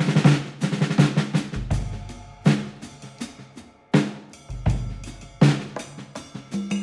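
Background music with a drum beat and bass.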